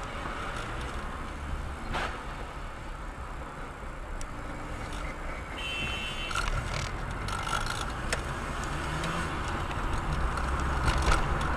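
Steady engine and tyre noise of a moving car, with a couple of faint clicks and a brief high tone about six seconds in.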